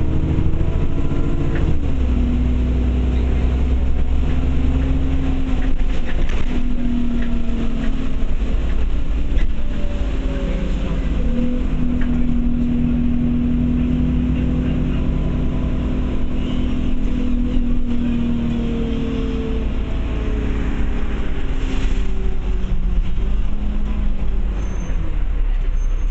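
Bus engine and drivetrain heard from inside the passenger saloon while the bus is driving, over a heavy low rumble. The engine note drops about two seconds in, climbs and holds steady through the middle, then falls away again later on as the bus slows.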